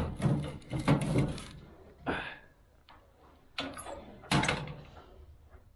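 Wood-burning kitchen range being stoked: a rapid run of metal clanks and wooden knocks in the first second and a half as the fire door is worked and a log goes in, then a scrape and a few more knocks.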